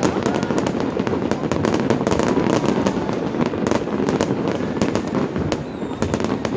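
Fireworks display: a dense, unbroken run of sharp bangs and crackles, several a second, over a continuous low rumble of booms.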